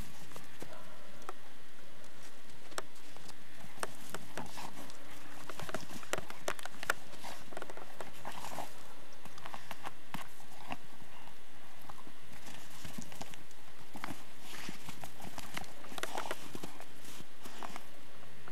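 A dog trampling and digging in snow around its ball, making irregular crunching steps and scuffs.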